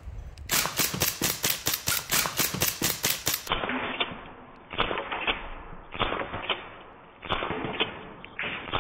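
Umarex Glock 17 Gen4 CO2 blowback BB pistol fired in rapid semi-auto, about six sharp shots a second for some three seconds, as BBs strike shaken soda cans. After that comes a muffled run of irregular pops as the cans burst and spray.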